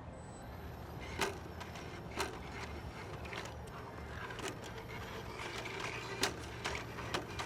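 Scattered light clicks and knocks, about five in all, from handling the 3D-printed plastic RC monorail while it is set back on its track after derailing, over a low steady hum.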